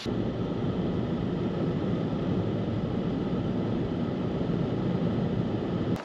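A car driving, giving a steady low rumble of engine and tyre noise.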